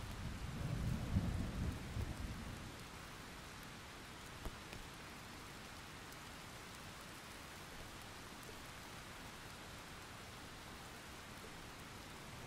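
Steady hiss of rain falling, with a low rumble during the first two seconds or so and a single short tap about four and a half seconds in.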